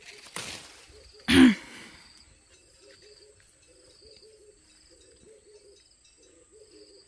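Avocado tree's leaves and branch rustling and shaking as a ripe avocado is pulled off by hand, loudest in one sudden tug about a second and a half in. Afterwards, low short calls repeat with a faint, regular higher chirping behind them.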